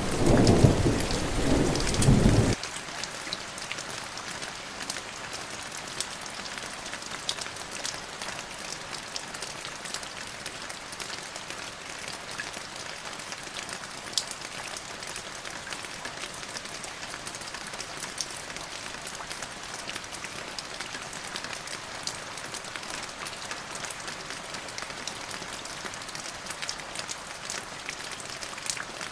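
Steady rainfall, an even hiss with scattered drop ticks. A loud low rumble sounds over it at first and cuts off abruptly about two and a half seconds in.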